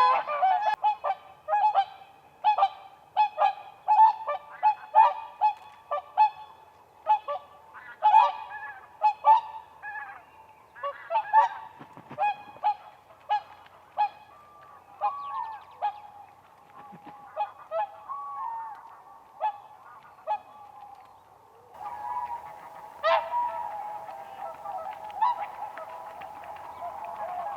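Whooper swans calling: a long run of short, pitched calls from several birds, often overlapping. The calls thicken into a denser, continuous chorus in the last few seconds.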